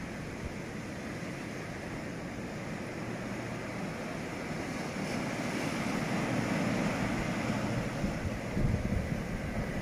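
Steady rushing noise of a passenger train running, heard from on board, with wind buffeting the microphone. It grows louder from about halfway through, with low gusts near the end.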